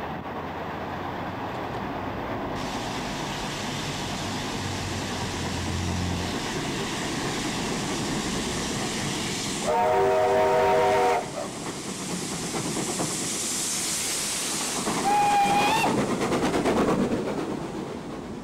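Steam locomotive working a train uphill and passing close by, its exhaust and running gear making a steady rushing noise that grows louder as it comes level. About ten seconds in a steam whistle sounds a chord of several notes for about a second and a half, and a few seconds later a second, shorter whistle sounds with a slight upward slide over the clatter of the passing train.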